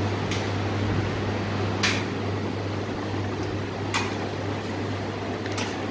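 Steady low hum of industrial sewing machine motors running, with four short sharp clicks spread through at uneven intervals.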